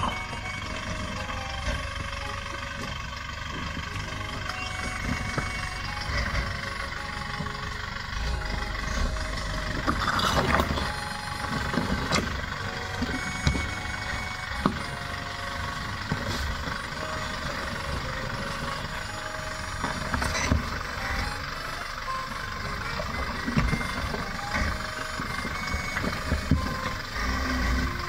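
Off-road vehicle driving a rough 4x4 trail: steady engine and tyre noise with intermittent knocks and rattles, loudest about ten seconds in and again near twenty.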